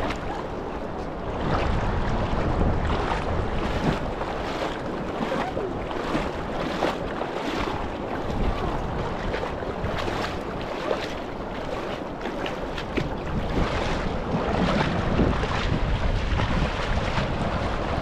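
Rushing river water with wind buffeting the microphone, and scattered light knocks and clicks throughout.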